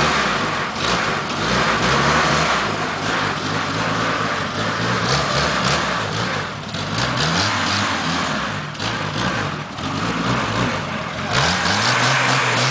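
Stock Chevrolet Opala inline-six engine running and being revved up and down through its exhaust, its pitch rising and falling. About eleven seconds in, the sound cuts to a steadier, more even engine note.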